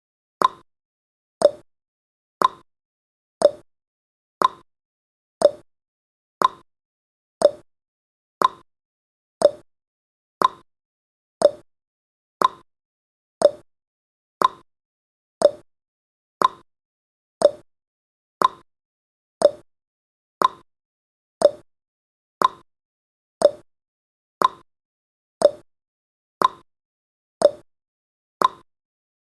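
Clock tick-tock sound effect of a countdown timer: a short click once a second, alternating a higher and a lower tick.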